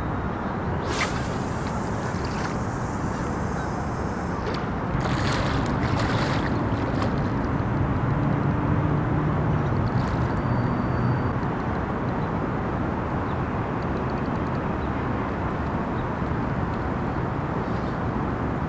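Overhead cast of a long fishing rod: a sharp swish about a second in, followed by a short hiss, over a steady low outdoor rumble.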